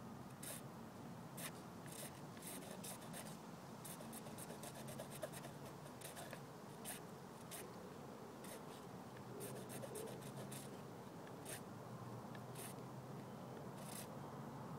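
Light, irregular scratching and scraping with scattered sharp ticks.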